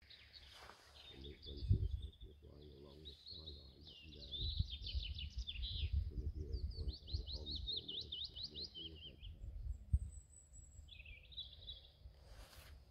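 Male willow warbler singing: runs of quick, high, sweet notes, the phrase ending on lower notes, with a shorter phrase near the end. A low rumble lies underneath, with a couple of dull thumps, one near the start and one about ten seconds in.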